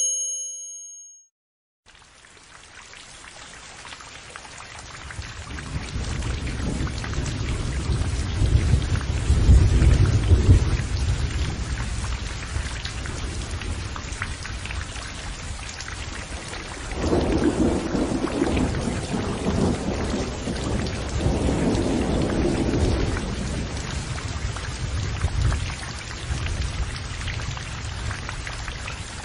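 Thunderstorm: steady heavy rain with rolling thunder, a long low rumble swelling to its loudest about ten seconds in and a second rumble later on. A brief ringing chime sounds at the very start before the rain fades in.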